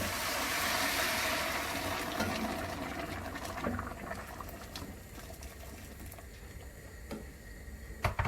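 Water poured into a hot pot of sautéed onion, tomato and carrot, hissing and bubbling loudly at first, then dying down over several seconds. A sharp knock near the end.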